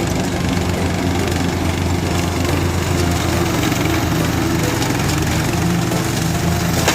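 Small engine running steadily.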